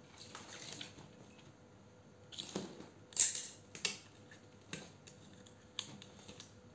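Handling noise: scattered plastic clicks, taps and rustles as a cordless drill's battery pack and thin jumper wires are fitted together by hand, the sharpest click about three seconds in. The drill's motor does not run.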